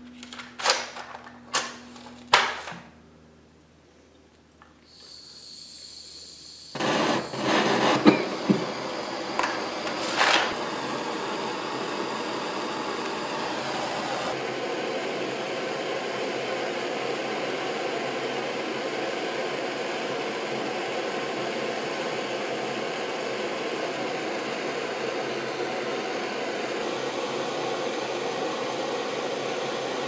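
A few sharp clicks, then a handheld propane torch: gas hissing from about five seconds in, the flame catching about two seconds later, then burning with a steady rushing hiss as it heats the boiler's steam dome joint for silver soldering.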